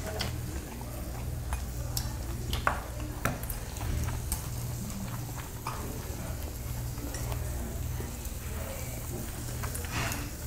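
Chopsticks and tableware clicking and clinking at a meal, about ten scattered sharp taps against plates, bowls and the grill. The taps sound over a steady low hum.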